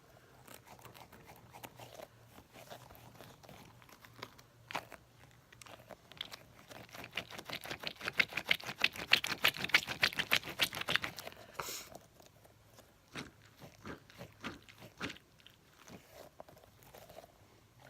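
Fingers working a sticky, squishy toy close to the microphone: a rapid run of small crackles and clicks, thickest and loudest in the middle few seconds, then thinning to scattered clicks.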